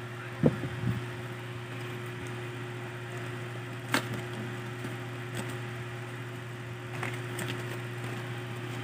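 A cardboard camera box being handled and turned over: a few light knocks and rustles, the sharpest about half a second in and about four seconds in, over a steady low hum.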